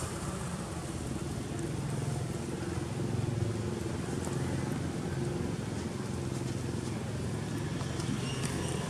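Steady low hum of a running motor, like a vehicle engine idling.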